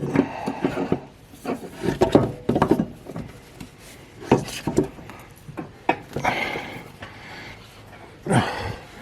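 Irregular knocks and scrapes of a wooden block and metal tools against a mower blade, as the blade bolt is tightened with a breaker bar, in several short bursts with pauses between.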